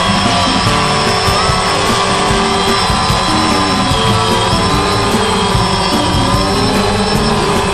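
DJI Phantom quadcopter's motors and propellers buzzing steadily and loudly, heard through the camera mounted on the drone itself.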